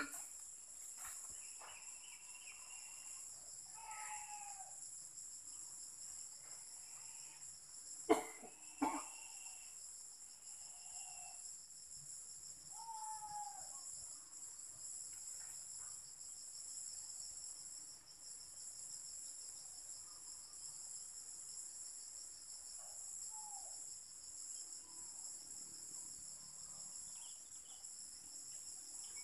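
Steady high-pitched drone of insects, with a few short chirping calls scattered through it. Two sharp clicks stand out about eight and nine seconds in.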